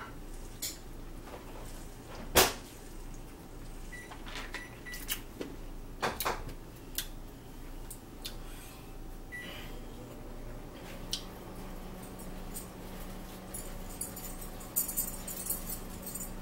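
Scattered clicks and knocks of small objects handled and set down on a wooden table, with one sharp knock about two seconds in and a few lighter ones after. Light clatter of tableware near the end.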